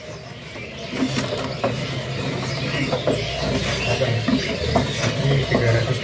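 Scratching, clicking and rustling from birds moving about in their cages at a bird kiosk, irregular and busy over a low rumble.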